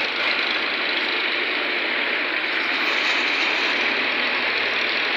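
Diesel tractor engines idling in a line of waiting tractors: a steady, even engine noise with no breaks.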